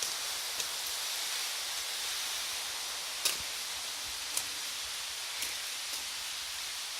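Steady rushing hiss of river water, with five short sharp ticks scattered through it, the loudest a little over three seconds in.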